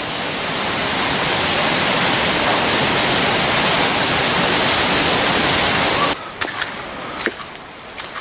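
Waterfall pouring into its plunge pool: a steady rush of falling water. It cuts off suddenly about six seconds in, giving way to footsteps and small snaps on a bush trail.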